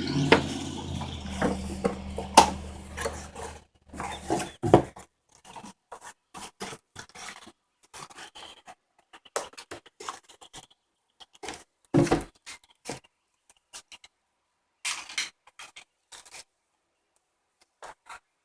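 Handling noises: scattered clicks, knocks and rubs as a plastic laptop cooling pad and its packaging are moved about, with a louder knock about twelve seconds in. A steady low engine-like hum fades away over the first four seconds.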